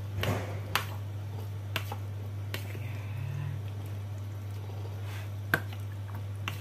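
Metal spoon stirring chicken wings in a wet marinade in a plastic bowl: soft squelching, with a handful of sharp clicks of the spoon against the bowl, the loudest about five and a half seconds in. A steady low hum underneath.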